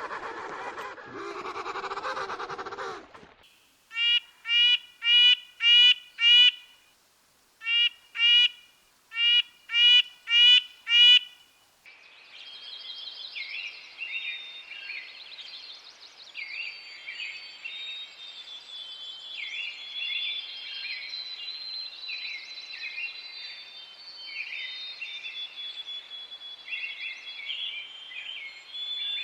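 A sequence of animal recordings. A raspy call lasts about three seconds, then two runs of short, evenly spaced repeated calls follow, then a long chorus of many birds chirping and singing at once.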